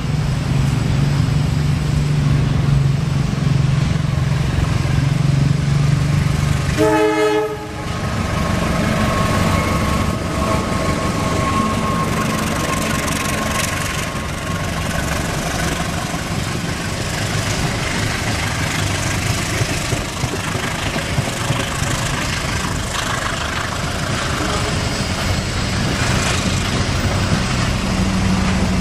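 CC 201 diesel-electric locomotive running as it approaches, with a strong low engine drone, then the passenger coaches rolling past with steady wheel noise and scattered clicks of the wheels over the rail joints.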